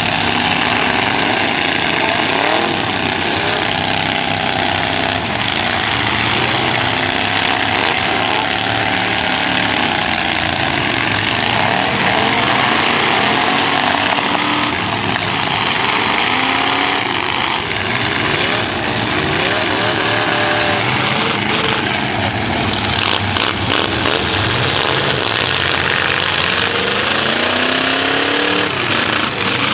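Several chain-stock demolition derby cars' engines running and revving at once, their pitches rising and falling over and over and overlapping.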